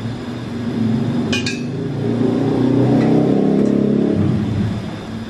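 A metal utensil clinks once against an aluminium steamer tray about a second in, as a steamed chicken breast is lifted out. Under it, the pot on the stove gives a low rumble that swells in the middle and eases off near the end.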